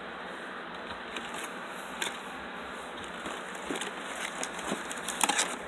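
Faint scattered clicks and rustles of food being handled, sparse at first and coming thicker toward the end, over a steady low hiss.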